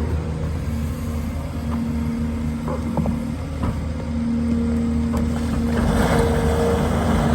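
Heavy diesel construction machinery running with a steady low rumble and an engine tone that comes and goes. There are a few short metallic clanks in between.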